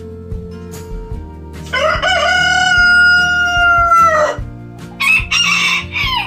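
Rooster crowing: one long crow of about two and a half seconds, then a shorter, rougher call about a second later. Background music plays underneath.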